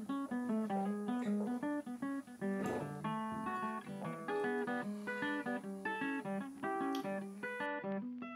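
Background music: an acoustic guitar plucking a lively melody of quick, short notes.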